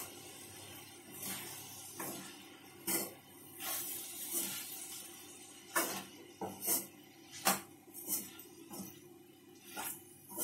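Steel spoon stirring soaked sabudana (sago) khichdi in a stainless steel kadhai, scraping and clinking against the pan at irregular moments, about once a second.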